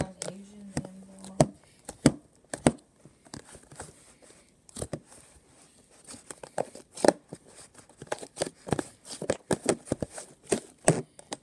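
Slime being squeezed and poked by hand, making a run of irregular sharp clicks and pops that come thicker in the second half. A steady low hum lasts about the first second and a half.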